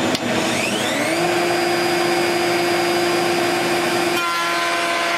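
A RIDGID shop vac runs steadily while a 2 HP RIDGID router motor is switched on with a click just after the start. The router's whine rises in pitch over about a second as it spins up, then holds steady. About four seconds in, the whine's pitch changes abruptly, while the overall noise stays as loud.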